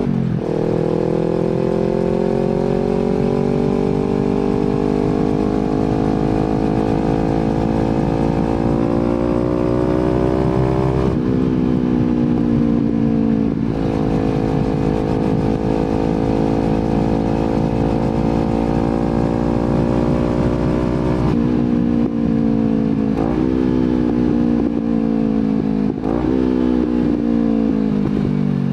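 Kawasaki Z250 motorcycle engine through an aftermarket slip-on exhaust while riding. The pitch climbs steadily under acceleration and drops at gear changes about eleven and fourteen seconds in and again near twenty-one seconds. It then falls away with downshifts as the bike slows near the end.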